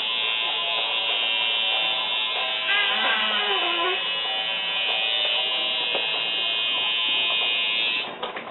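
Electric tattoo machine running with a steady high buzz, then switched off about eight seconds in.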